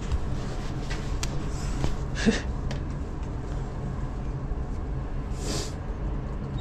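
Small passenger lift rising between floors, a steady low hum of the car in motion, with a few light clicks and two brief rustles.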